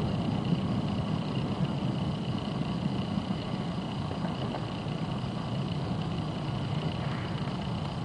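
Steady low rumble of distant city traffic, with a faint steady high tone above it and no bangs.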